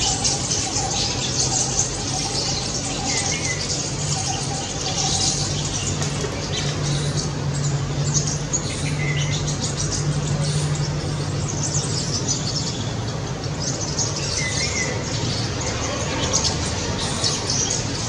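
A flock of rosy starlings chattering continuously, a dense stream of rapid high-pitched chirps and squeaks. A steady low hum runs underneath.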